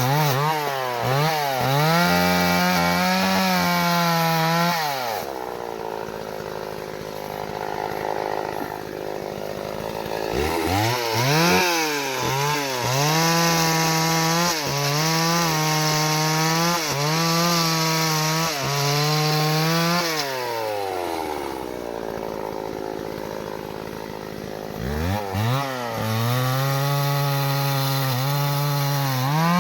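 Two-stroke chainsaw cutting acacia wood, held at full throttle with a wavering pitch under load. It drops back to idle twice, about five seconds in and again about twenty seconds in, and revs back up each time.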